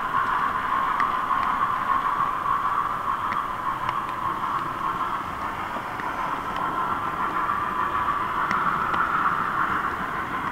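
H0 scale model train running on the layout, picked up close by a camera riding on the train: a steady whirring hiss with faint, irregular clicks.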